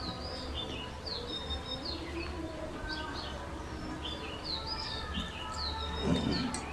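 Small birds chirping repeatedly, short quick notes, over a steady low hum. A brief louder, lower sound comes about six seconds in.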